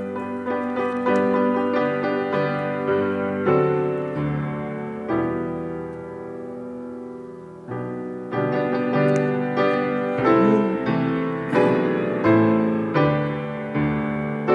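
Piano playing slow offertory music: chords struck about once a second that ring and die away, with a softer held passage partway through.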